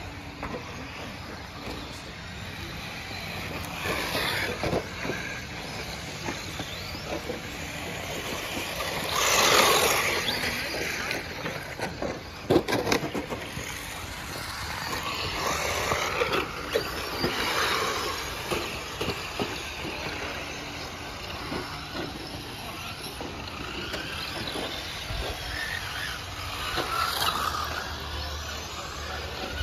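Electric RC rally cars racing on a dirt track: their motor whine and tyre noise swell and fade as the cars pass, loudest about ten seconds in. A few sharp knocks come a couple of seconds after that.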